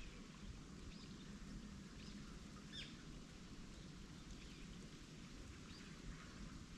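Faint, scattered bird chirps, with one clearer call about three seconds in, over a steady low background rumble.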